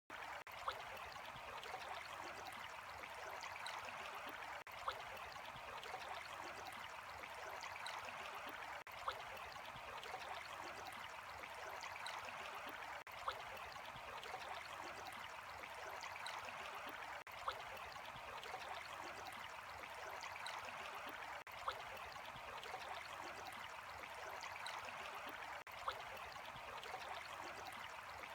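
Steady flowing water, like a small stream trickling over stones. A short click comes about every four seconds.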